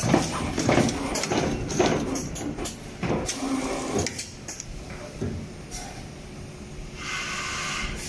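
Automatic multi-core thimble crimping machine running through its cycle: a run of sharp mechanical knocks and clacks from its pneumatic actuators over the first four seconds, then quieter, with a steady hiss of air starting near the end.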